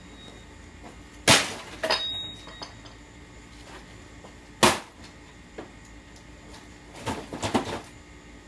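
Hammer blows on a Magnavox amplifier: sharp strikes about a second and two seconds in, a loud single hit near the middle, then a quick flurry of several knocks near the end.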